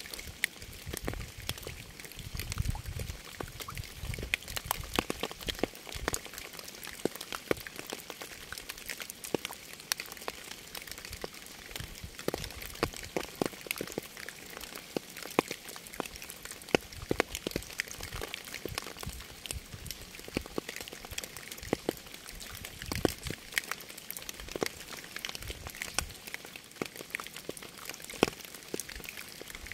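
Steady rain, a hiss of rainfall with many separate drops striking close by as irregular sharp clicks throughout.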